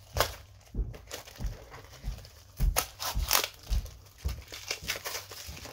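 A mail package being opened by hand: packaging crinkling, rustling and tearing in irregular bursts, loudest about three seconds in.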